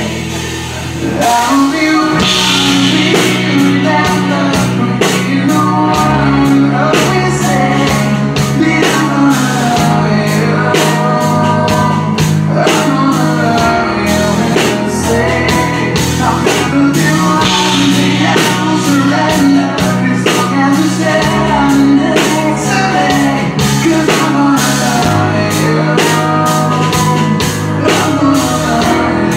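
Live rock band playing: a male lead vocal over electric guitar, bass guitar and drums. The band drops back briefly at the very start, then comes in fully about a second in.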